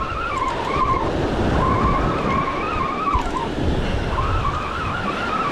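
Surf washing in and wind on the microphone, with a wavering whine that comes and goes in stretches of a second or two, from a spinning reel being cranked to bring in a hooked fish.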